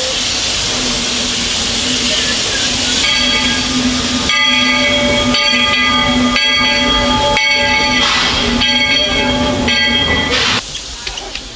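Steam locomotive of the Walt Disney World Railroad letting off steam with a loud hiss. About three seconds in its multi-note steam whistle joins, sounding one chord with short breaks about once a second. Both cut off sharply about ten and a half seconds in.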